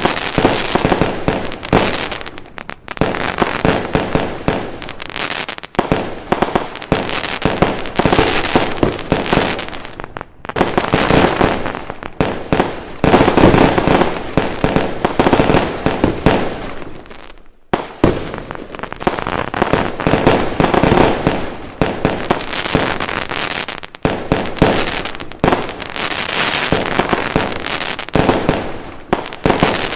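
A dense, continuous fireworks barrage: rapid bangs, pops and crackling, one after another, with only brief lulls. This is the kind of recording played to dogs to get them used to the noise of fireworks.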